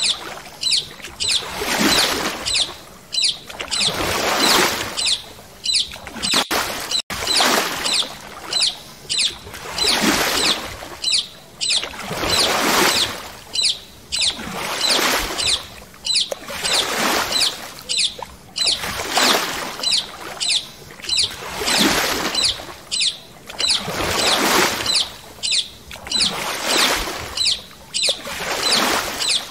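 Paddle strokes through water from a stand-up paddle board: an even rhythm of splashing swishes, about one every second and a third.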